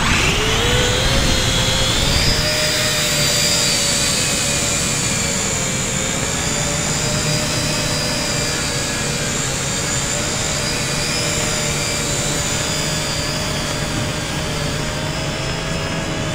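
WLtoys V686G quadcopter's electric motors and propellers spinning up with a rising whine over the first couple of seconds, then a steady, slightly wavering whine as it flies.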